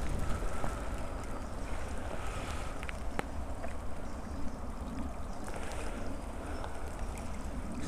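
Rustling and crackling of dry pine needles and forest soil as a hand digs around a porcini (Boletus edulis) and grips its stem to pull it up, with a few sharp clicks. Under it runs a steady low rumble on the microphone.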